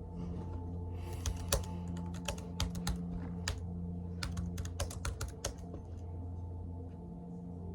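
Typing on a Chromebook's laptop keyboard: irregular key clicks in quick runs, thinning out after about six seconds, over a low steady hum.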